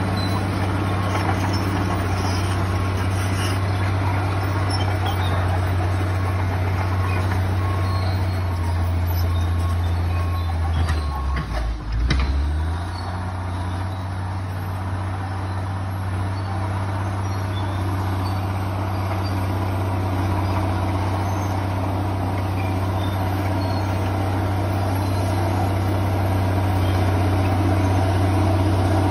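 Komatsu D65PX crawler dozer's diesel engine running steadily under work. About halfway through, the engine note dips sharply with a few knocks, then picks back up.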